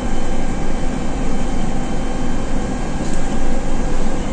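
Dennis Dart single-deck bus's rear-mounted diesel engine running steadily while the bus is under way, heard from the rear seats inside the cabin, mixed with road and air-conditioning noise.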